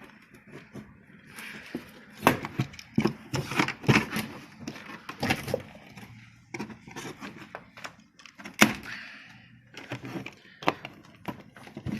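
Irregular knocks, clicks and rustling from objects being handled, with one sharp knock standing out near the middle.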